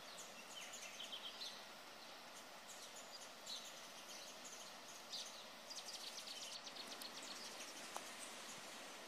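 Small birds chirping and twittering over a faint, steady outdoor hiss, with a quick run of rapid chirps a little past the middle.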